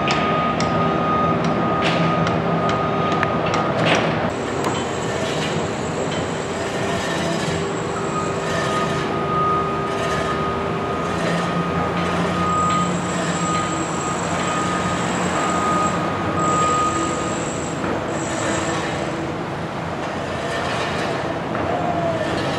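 Steady mechanical running noise with held whining tones, one high-pitched whine cutting in and out, and a few sharp clicks near the start.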